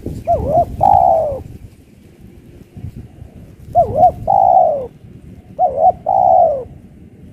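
Spotted dove cooing three times. Each call is two quick short notes followed by a longer, falling coo.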